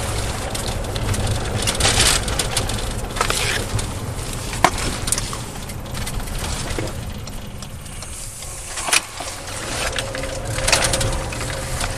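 Patrol car interior while driving, heard through the driver's chest-worn body camera: a steady low road and engine rumble, with swells of rustling as the camera rubs against the uniform and a couple of sharp clicks.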